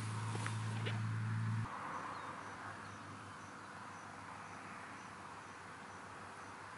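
A steady low hum that stops abruptly a little under two seconds in. After it comes faint background noise with an insect chirping softly about twice a second.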